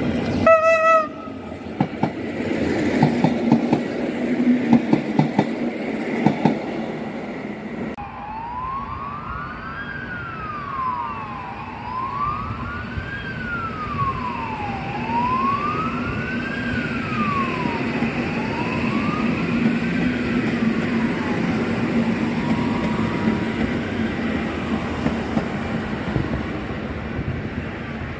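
Regional electric multiple units passing through a station: a short horn blast near the start, then wheels clattering over rail joints over a steady running hum. From about eight seconds in, an emergency-vehicle siren wails up and down, about once every three and a half seconds, over the train noise.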